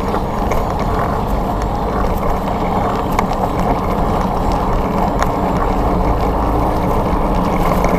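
Motorcycle engine running steadily, with traffic noise.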